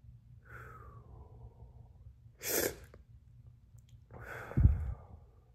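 A man's hard, sharp breaths through mouth and nose, three in a row, from the burn of eating superhot chili peppers; the last comes with a low thump.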